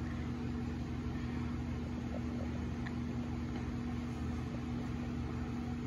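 Steady background hum: one constant tone over a low drone and a light hiss, unchanging throughout.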